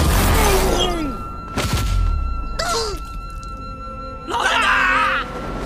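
Action film soundtrack: a dramatic music score with a heavy low impact at the start and a sharp hit about a second and a half in, mixed with shouted cries.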